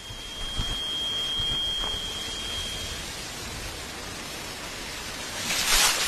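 Steady hiss of noise, with a thin high whistle held for about two seconds near the start and a short rising rush of noise near the end.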